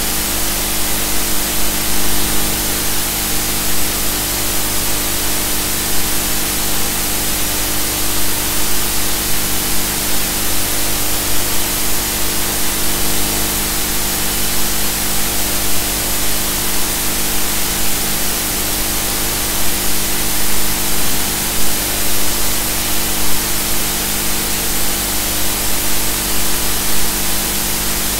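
Steady, loud hiss with a constant multi-tone hum underneath, unchanging throughout: the noise bed of an ROV video recording's audio track.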